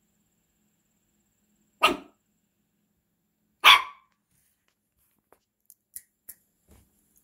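Yorkshire terrier puppy barking twice, two loud short barks about two seconds apart, followed by a few faint clicks near the end.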